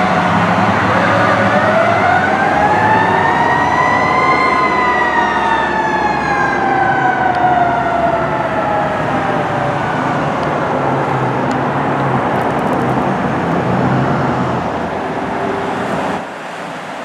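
Fire apparatus siren on a code 3 emergency response: one slow wail that rises for about four seconds, then falls away over the next six, over the low running of the trucks and traffic. The sound drops to quieter street noise near the end.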